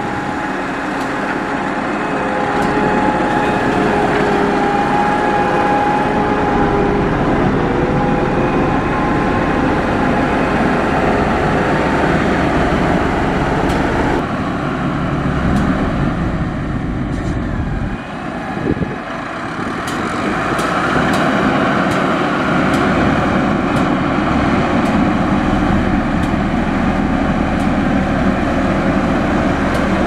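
Diesel engines of heavy road-building machines, a motor grader and a LiuGong single-drum road roller, running steadily as they work a dirt road bed. The sound changes abruptly about 14 seconds in and again around 18 seconds in.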